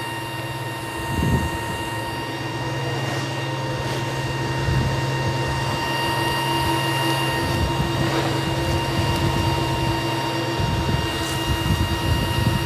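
A steady mechanical hum with several constant high whining tones over it and a few low rumbles.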